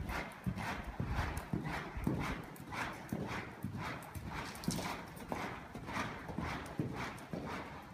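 Grey horse loping on an indoor arena's dirt footing: its hoofbeats come in a steady rhythm, a stride about every half second.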